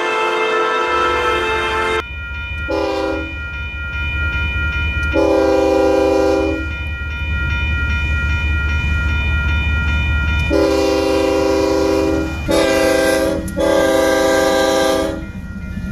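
Background music for the first two seconds. Then a freight locomotive's multi-chime air horn sounds the grade-crossing signal: a short tap, two long blasts, then a short and a long, over a growing diesel rumble and the steady ringing of the crossing bell.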